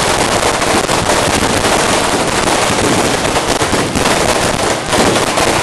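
Fireworks going off in a loud, continuous crackle of many rapid small bangs.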